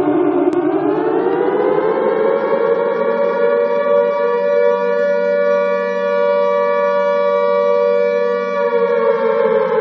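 Alarm siren wailing in a slow cycle. Its pitch bottoms out about half a second in, climbs over a few seconds to a steady high tone that holds for about four seconds, then begins to fall again near the end.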